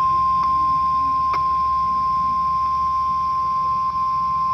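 NOAA Weather Radio warning alarm tone: a single steady high tone of about 1050 Hz, held unbroken at a loud, even level. It is sent during a weekly test of the weather radio warning system, received off the air.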